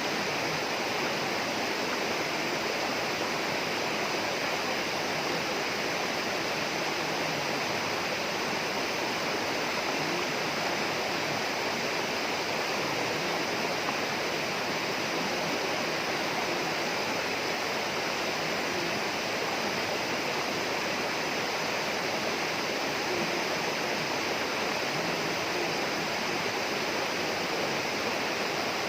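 Steady rush of running water, as from a rainforest stream or waterfall, unchanging throughout.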